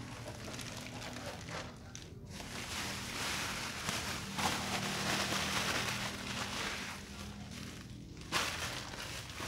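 Clear plastic wrapping crinkling and rustling as it is handled, loudest in the middle, with a sharper rustle near the end.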